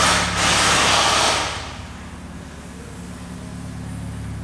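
Car engine idling steadily with a low, even hum. A loud rushing noise sits over it for about the first second and a half, then dies away.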